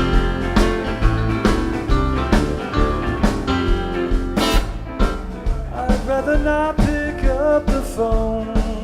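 Live rock band playing an instrumental passage, with a steady drum beat, bass and guitar. Past the middle, a lead melody with a wavering, bending pitch comes in over the band.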